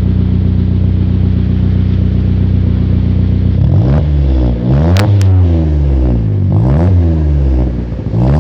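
2012 Chevrolet Celta's four-cylinder engine idling steadily through a freshly fitted sport exhaust with a double tailpipe tip, then revved in several quick blips starting about three and a half seconds in, the pitch rising and falling each time. Two brief sharp clicks sound during the first rev.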